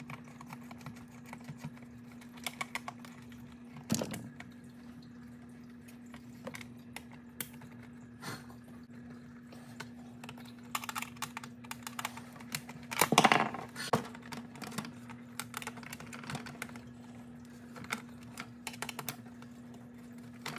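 Screws being backed out with a hand screwdriver from the motor bracket inside a Big Mouth Billy Bass's plastic plaque: scattered light clicks and scrapes of the driver and screws on plastic. There is a sharp knock about four seconds in and a louder clatter about two-thirds of the way through, over a faint steady hum.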